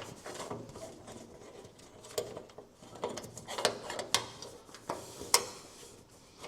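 Irregular metallic clinks and taps of bolts and clamp hardware being handled and fitted to a Willys MB bonnet, the sharpest click about five seconds in.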